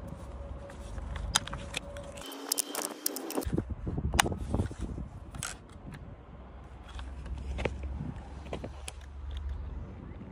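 Sharp plastic clicks and handling noises from a hand-held RC transmitter and car chassis being handled and switched on, over a steady low rumble. A brief steady tone sounds a little over two seconds in.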